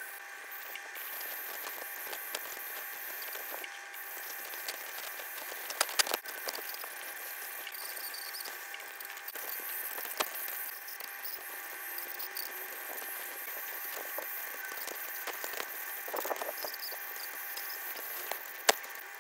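Ultrasonic dental scaler running while scaling a dog's teeth: a steady whine and the hiss of its water spray, with a few sharp clicks of the metal tip against the teeth, the loudest about six seconds in and near the end.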